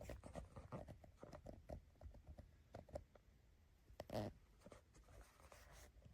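Faint, scattered handling clicks and light knocks, with one louder knock about four seconds in.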